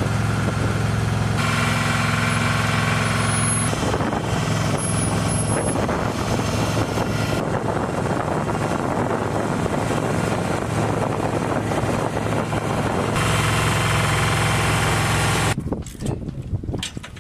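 Steady engine hum of flight-line ground equipment running, dense and continuous, its mix changing abruptly several times. Near the end it drops away to quieter clicks and knocks of tools on the bomb fittings.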